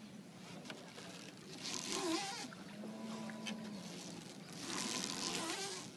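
River water swishing along a small boat in two swells about three seconds apart, over a faint steady hum.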